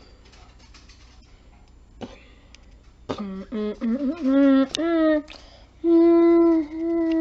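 A howl: a few short wavering cries about three seconds in, then a long held howl that begins to slide down in pitch near the end.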